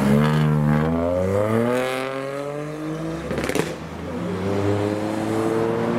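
Ford Fiesta hatchback's engine accelerating hard, its note climbing steadily for about three seconds. About three and a half seconds in there is a short break with a sharp crack, then an engine note climbs again.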